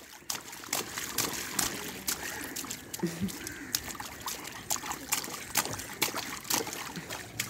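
A baby slapping and splashing the water of a shallow inflatable paddling pool with both hands: an irregular run of small splashes and dripping water.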